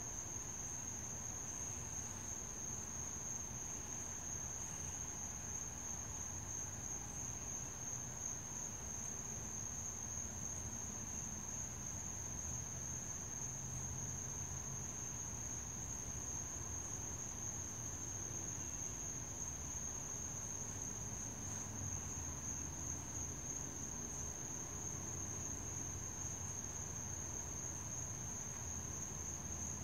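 Night insects, crickets, trilling without a break in one steady high-pitched chorus.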